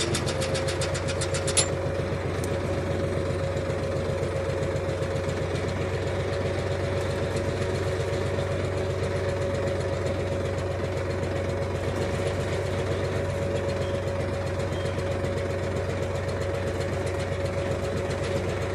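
Tractor diesel engine running steadily while its hydraulics pump oil continuously to a laser land leveler, with a steady whine held over the engine. A rapid train of clicks in the first second and a half.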